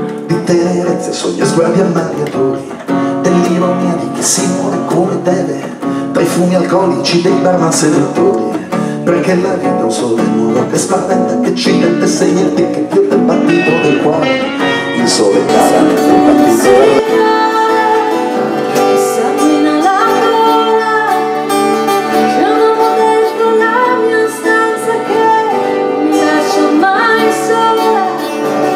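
Live acoustic band music: guitars strumming and picking a rhythmic accompaniment, with a singing voice coming in about halfway through.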